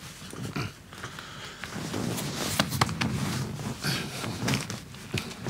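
Soft rustling of clothing and a few faint clicks as someone shifts in a chair.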